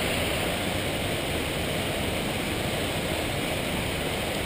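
Steady rushing of a creek's flowing water, an even noise that does not change.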